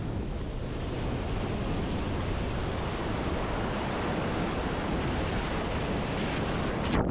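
Ocean surf breaking and washing up a sandy beach, a steady rush of water with wind on the microphone. Just before the end the sound suddenly goes dull and muffled as the camera is dunked under the wash.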